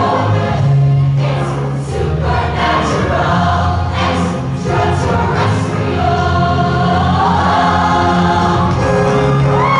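Women's show choir singing over a live backing band, a steady low bass line under the voices. Near the end a voice slides up into a held high note.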